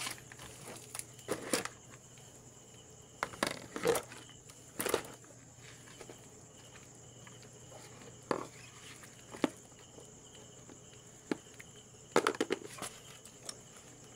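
Freshly caught spider conch shells, crabs and fish being handled in a wire basket and tub: irregular clattering, knocking and rustling as the shells are picked up and moved. A steady high whine and a low hum run behind it.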